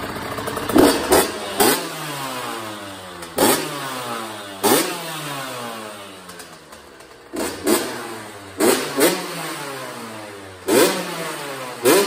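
Honda CR80's 80cc two-stroke single-cylinder engine blipped about ten times with quick twists of the throttle, each rev dropping straight back to a low idle.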